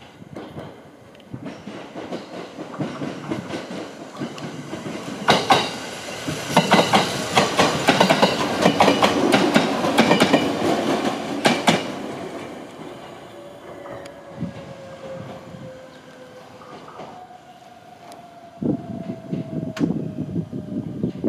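JR East E127 series electric train passing close by, its wheels clacking over the rail joints, building up and loudest in the middle, then fading away. As it fades, a thin whine slides slowly downward in pitch.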